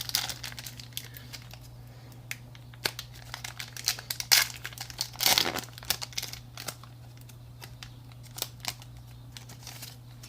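Foil wrapper of a Pokémon Celestial Storm booster pack crinkling as it is torn open, with a couple of louder rips about four and five seconds in.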